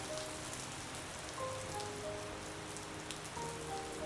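Steady rain falling, with a soft melody over it: short notes in falling runs of three or four, repeating about every two seconds.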